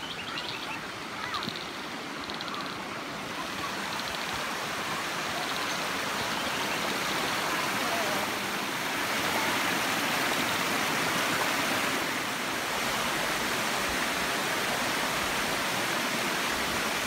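Waterfall cascading down a rock face into a rocky stream, a steady rush of water that grows louder over the first nine seconds or so and then holds level.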